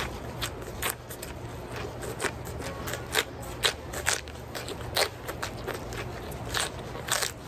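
Raw celery being bitten and chewed: a run of crisp, irregular crunches, a few a second.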